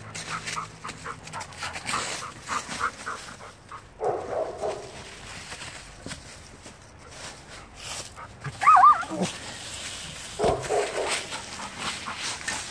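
A dog whining in short, wavering cries, the loudest about nine seconds in, with crackling of dry leaves as it handles a large branch.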